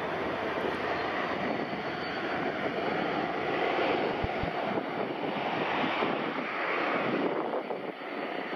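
Boeing 737's twin turbofan engines at high thrust as it starts its takeoff roll, a steady jet roar heard from behind the aircraft with a faint high-pitched whine above it.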